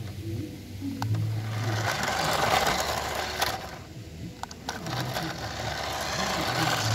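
Small electric motor of a toy car buzzing and whirring as it drives, getting louder and softer, with a brief dip about four seconds in.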